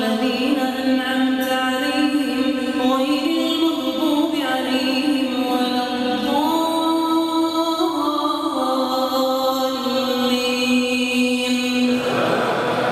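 A man reciting the Quran in a melodic chanting style, holding long drawn-out notes that step up and down in pitch.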